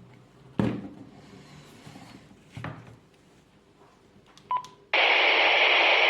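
Retevis RA79 handheld two-way radio being operated: two handling clicks, a short key beep, then about five seconds in a loud, steady burst of static hiss as the receiver's squelch opens.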